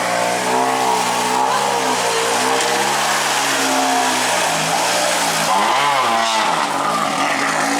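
Skoda Fabia Rally2 evo's turbocharged 1.6-litre four-cylinder rally engine revving hard at speed, its pitch rising and falling through throttle changes, with a sharp dip and pickup about six seconds in.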